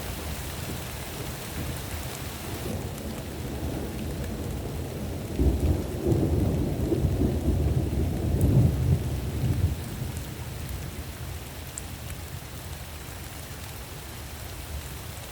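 Steady rain with a roll of thunder that swells about five seconds in, rumbles low and deep for around four seconds, then dies back to the rain.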